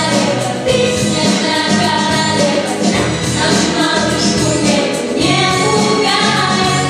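Children's vocal ensemble singing a song live into microphones, several young voices together over loud instrumental accompaniment.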